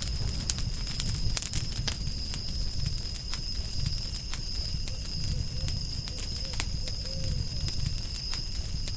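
Campfire crackling: irregular sharp pops and snaps over a steady low rumble of burning wood. A steady high-pitched tone runs throughout.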